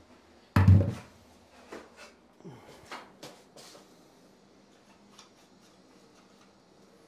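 Knocks and clicks from handling the metal pull-down lift basket and its fittings in a wall cabinet: one loud thump just under a second in, then several light knocks and clicks that die away by about four seconds.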